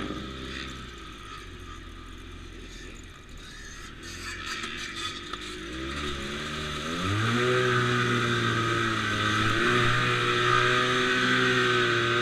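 ATV engine running at low revs, then revved up hard about six seconds in and held at high revs, with small dips, until it drops back at the very end.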